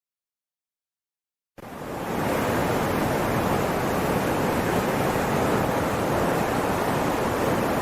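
Flash-flood sound effect: a steady, even rush of water that fades in about a second and a half in, after a stretch of silence.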